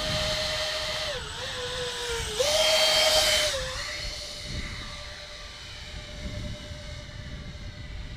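Four 64 mm electric ducted fans on a radio-controlled model airliner, spun by Turnigy 4200KV motors, whining at a steady pitch in flight. The pitch drops about a second in as the throttle is eased, comes back louder around two and a half seconds, then settles lower and fades as the model flies away.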